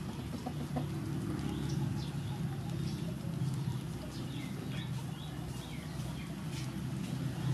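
Small birds chirping in short, high, falling calls scattered throughout, over a steady low hum.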